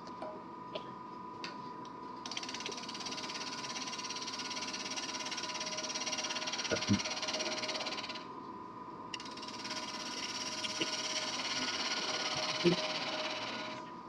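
Wood lathe running with a steady motor whine while a bowl gouge squares off the end of a turning blank: two long passes of cutting hiss, about six and five seconds long, with a short break between them.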